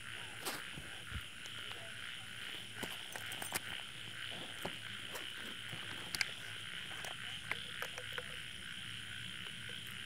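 Night chorus of frogs and insects: a steady high-pitched drone with scattered short clicks and croaks.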